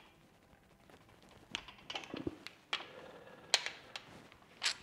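Torque wrench and socket on a main bearing cap bolt of a bare engine block: a few short, sharp metal clicks and knocks that begin about a second and a half in, the loudest near the end.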